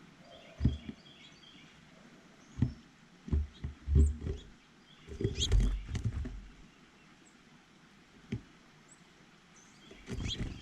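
Small birds giving short high chirps, over irregular low thumps and knocks close to the microphone, the loudest cluster around the middle.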